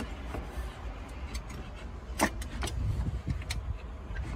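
Scattered clicks and light knocks from a Mazda 3 turbocharger and its hose being worked loose by hand, the sharpest about two seconds in, over a low steady rumble.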